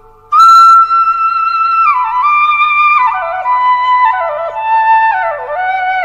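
Solo flute melody: a long held note enters sharply about a third of a second in, followed by notes that bend and slide downward in steps.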